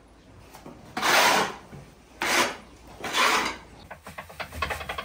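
Three rough scraping strokes, each about half a second long, of a long-handled hand tool dragged across the floor of a cow stall. Near the end, a small electric drum mixer runs with a low hum and a rapid rattle of dry grain.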